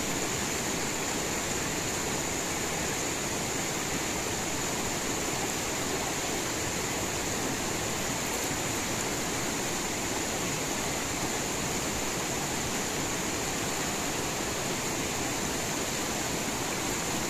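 River water rushing over shallow rocky rapids, a constant even hiss.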